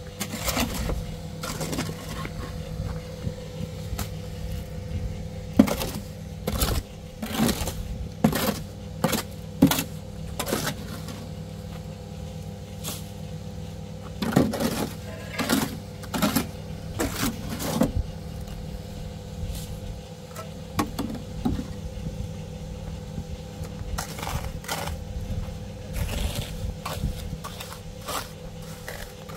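A steady low motor hum under irregular knocks, clatters and scrapes.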